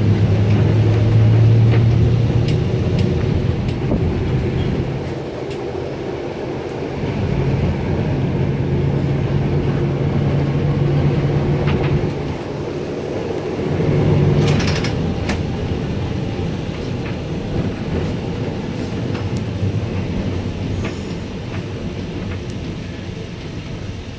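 Streetcar running along its track, heard from on board: a steady low motor hum that shifts in pitch, with scattered clicks from the wheels and running gear and a brief louder clatter about 14 seconds in.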